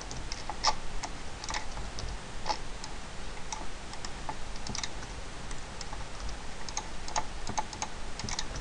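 Computer keyboard keys and mouse buttons clicking in short, irregular taps, a few a second, as shortcut keys are pressed.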